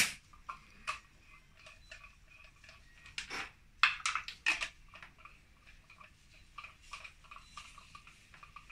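Light metallic clicks and handling noises as the compression tester's hose and fitting are worked at a spark-plug hole of a bare engine. There is a sharp click at the start and a few short rustles about three to four and a half seconds in.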